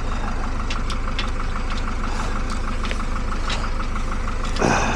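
An engine or motor running steadily, with a fast, even ticking over it.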